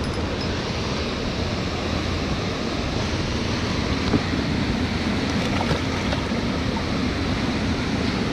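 Steady rushing noise of wind and moving water around the kayak, with a light knock about four seconds in.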